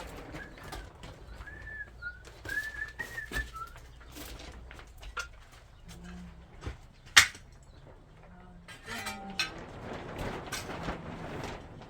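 A bird chirping, a run of short arched notes over the first few seconds, among scattered knocks and clatter, with one sharp loud knock about seven seconds in.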